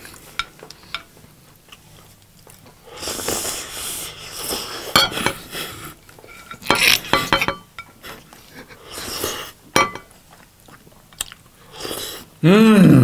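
Close-miked eating: a spoon scraping and clinking on a ceramic plate, and wet chewing of curry and rice in irregular bursts. Near the end there is a short, loud vocal sound with a rising and falling pitch.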